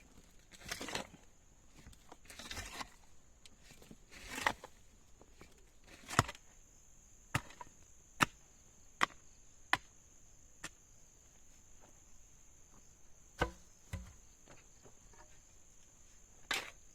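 A tool striking wood: a run of sharp knocks about a second apart in the middle, with a few softer rustling scrapes, over a steady high drone of insects.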